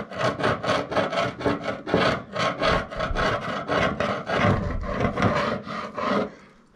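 A hand tool scraping and rasping excess body filler off a truck's steel roof in quick repeated strokes, about three or four a second, easing off near the end. The filler is only partly cured, still soft enough to dig out easily.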